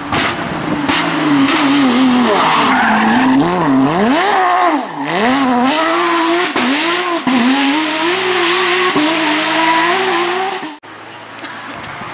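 Porsche 911 rally car's flat-six engine revving hard, its pitch rising and falling sharply as it downshifts and accelerates through a bend. Cuts off suddenly near the end.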